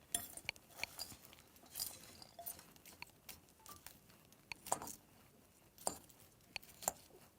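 A utensil clinking and scraping against a bowl as a salad of chopped vegetables and sprouts is mixed. It makes irregular light clicks, a few louder knocks near the end.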